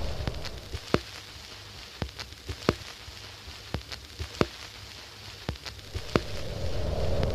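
Old record surface noise: irregular clicks and pops over a faint hiss, the crackle of a worn 78 rpm disc. A steady low rush comes in near the end.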